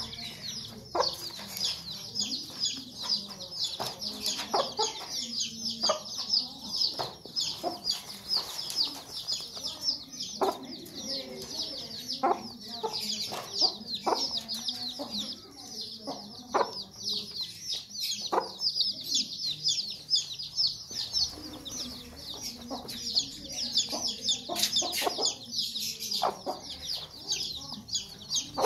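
A brood of chicks peeping continuously in a dense, high-pitched chorus, with a mother hen's low clucking coming and going underneath.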